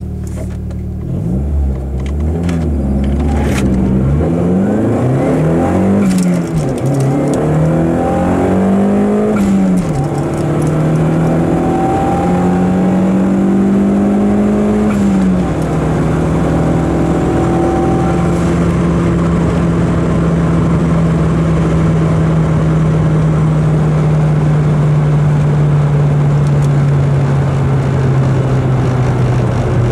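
Turbocharged BMW M42 1.8-litre four-cylinder engine heard from inside the car under hard acceleration. Its pitch climbs and drops several times in the first ten seconds as it is run up through the gears, climbs more slowly to a last shift about fifteen seconds in, then holds a steady drone at constant high speed.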